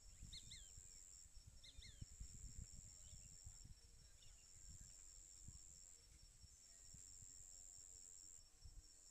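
Near silence: a faint, steady high whine that breaks off now and then, with a few faint short chirps in the first half.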